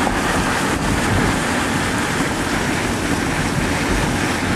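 Steady rushing noise of strong thunderstorm wind around a vehicle, buffeting the microphone, with no distinct knocks or calls.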